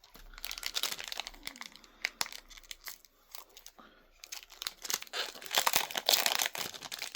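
A foil booster-pack wrapper of trading cards being torn open and crinkled in the hands, in two bouts of crackling with a short lull between, the second louder.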